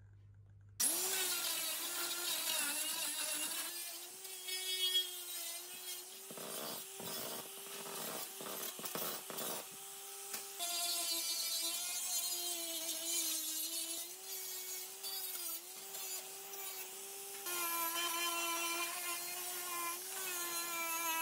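Angle grinder with a wire brush wheel running against thin rusty sheet steel, scouring off rust. It starts suddenly about a second in, a steady motor whine over a scratchy hiss, and the pitch wavers and dips as the brush is pressed into the metal.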